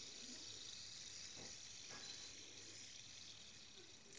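Faint steady whirring hiss of a spinning fidget spinner's ball bearing, with a few light ticks, cutting off abruptly near the end.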